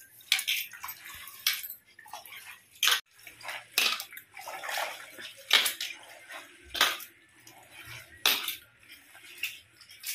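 Chopped cauliflower leaves being washed by hand in a steel pot of water: irregular splashing and sloshing of wet leaves, with now and then a metallic clink against the pot.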